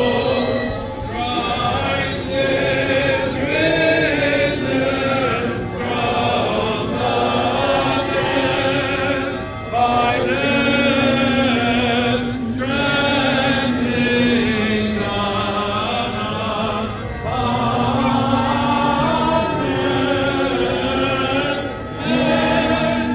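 Greek Orthodox liturgical chant: voices sing a moving melody over a held low drone note, which steps down in pitch about two-thirds of the way through and breaks off briefly near the end.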